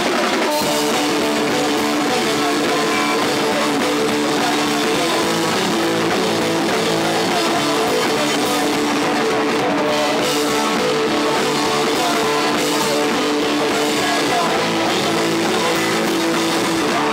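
A live rock band playing loud: electric guitars over a drum kit, with notes held steadily through most of it.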